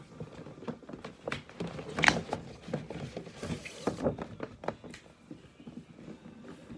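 Packaging being handled: rustling paper and cardboard with scattered knocks and clicks, the sharpest knock about two seconds in.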